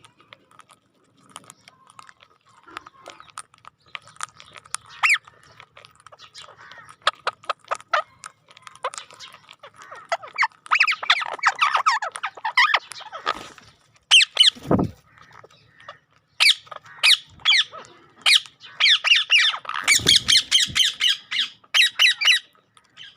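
A ringtone built from rapid runs of short, high chirps and squeaks, in clusters that grow busier past halfway and toward the end. A low thump comes past halfway and another near the end.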